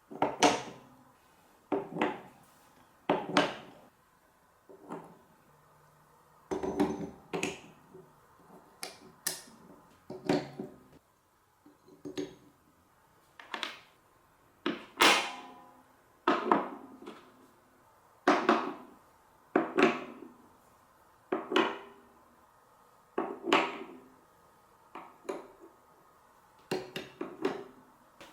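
Marbles rolling and dropping through a block marble run, clacking and rattling against the track pieces in short separate bursts about every second.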